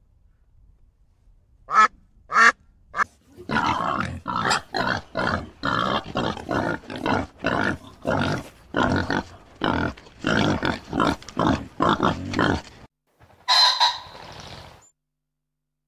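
Ducks quacking: a few single quacks, then a long run of rapid quacks, about two or three a second, that stops near the end and is followed by a short burst of noise.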